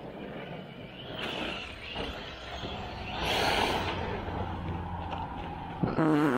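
1/8-scale electric RC trucks running on a dirt track: motor and tyre noise with a steady low hum, swelling to a loud hissing rush about three seconds in. A short voice, likely a laugh, comes in near the end.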